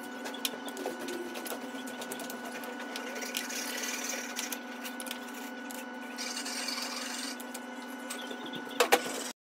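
Socket wrench working the rocker-box bolts on a motorcycle cylinder head, with irregular metal clicks over a steady mechanical hum. There are two sharper clicks near the end, then the sound cuts off.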